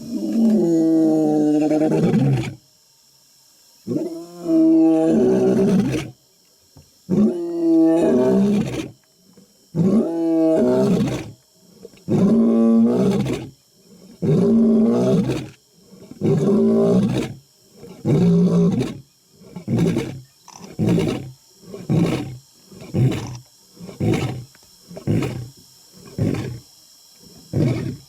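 A lion's roaring bout, close up: a few long, deep roars, then a run of shorter roars that come quicker and quicker and grow a little quieter toward the end, about fifteen calls in all.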